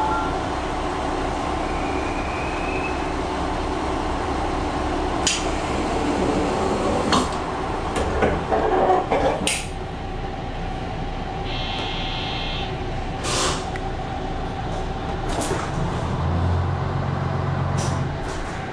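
Diesel railcar engine idling steadily, heard from the driver's cab, with several sharp clicks and short air hisses from the brake gear and a brief buzzing tone about twelve seconds in. Near the end the engine note rises and deepens as the train starts to pull away from the platform.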